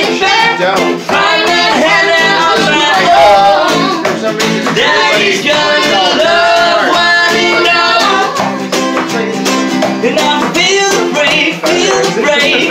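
Informal live acoustic jam: a woman and a man singing together over strummed ukulele and acoustic guitar.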